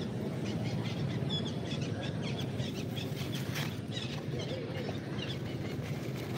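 Wind rumbling on the microphone, with small birds chirping repeatedly in the background.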